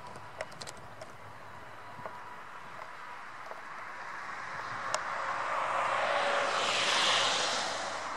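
Jet airliner's engines: a rushing jet roar that swells over a few seconds, is loudest about a second before the end, then begins to ease.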